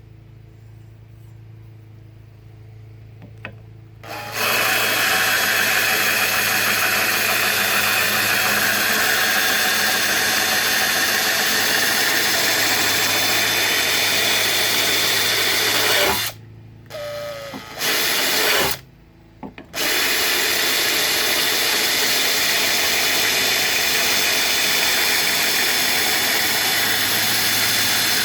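Power drill spinning a mower-blade sharpening stone: the motor hums quietly at first, then about four seconds in the stone bites into the steel blade with a loud, steady grinding hiss. The grinding breaks off briefly twice in the middle and then carries on to the end.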